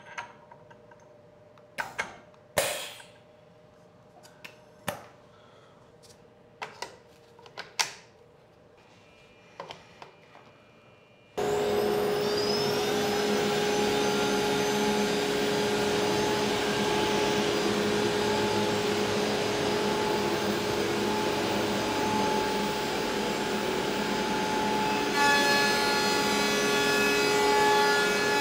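A few scattered clicks and knocks as a flattening bit is handled and fitted into a CNC router's spindle. About eleven seconds in, the CNC router with its dust extraction starts abruptly into a loud, steady whirring with a whine that climbs as it spins up. Near the end extra whining tones join in.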